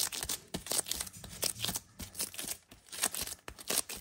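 Parchment paper crinkling and rustling in irregular crackles, along with disposable gloves rubbing, as hands press and squeeze a lump of warm nougat on the paper.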